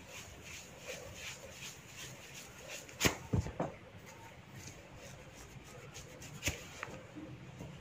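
Fingers rubbing and scratching through a person's hair, a soft regular rustle about three times a second. Two sharp snaps from hair being pulled and cracked, about three seconds apart, the first followed by a few smaller cracks.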